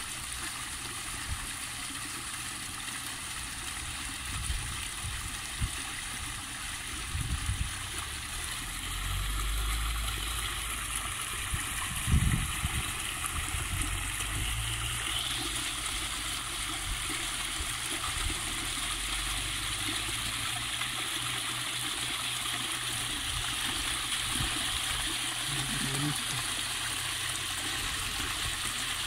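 Water of a garden rock waterfall pouring down stone steps into a shallow pool, a steady splashing rush. A few dull low thumps come in the first half, the loudest about halfway through.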